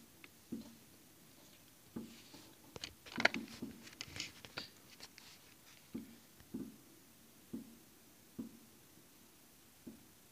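Distant fireworks going off: faint, scattered bangs about once a second, with a cluster of crackling about three to five seconds in.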